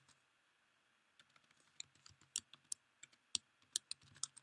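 Typing on a computer keyboard: faint, irregular key taps that start about a second in and come in quick clusters.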